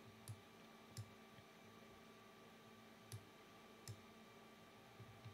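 Quiet computer mouse clicks, about six single clicks at irregular spacing, over near-silent room tone.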